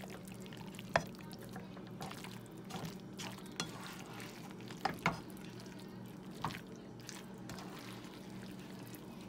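A utensil stirring and folding thick, wet cheese-and-pasta mixture in a nonstick skillet, with soft squishing and a few sharp clicks of the utensil against the pan, the loudest about a second in and around five seconds. A steady low hum runs underneath.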